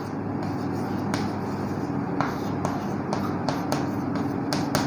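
Chalk on a blackboard while words are written: a run of short, irregular taps and scratches, over a steady low hum.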